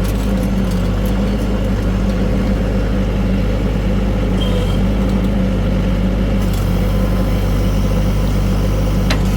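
LS XR4040 compact tractor's diesel engine running at a steady speed, a constant low hum.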